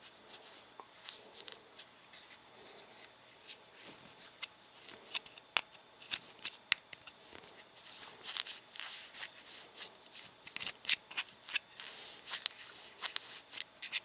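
Cotton balls being packed into a Zippo lighter's metal insert with a thin metal pick: faint rustling and scratching with scattered sharp clicks of the tool against the metal.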